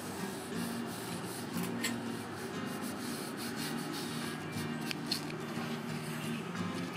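Bristle paintbrush stroking wet spar varnish along a white oak slat, a soft repeated brushing scrape, with quiet background music underneath.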